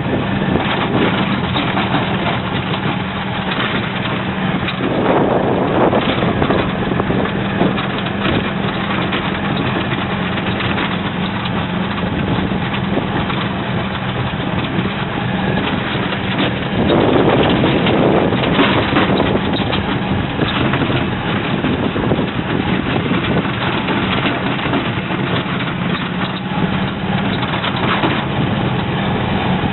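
Club Car Carryall utility cart driving along at a steady speed: a constant hum from its drive under rushing wind and road noise, with rougher, louder stretches about five seconds in and again around seventeen seconds.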